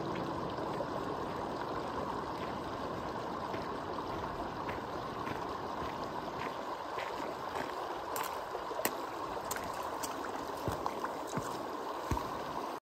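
Steady rush of a shallow mountain stream, with irregular crunching footsteps on gravel and stones from about halfway through as a hiker walks close past; it all cuts off suddenly at the end.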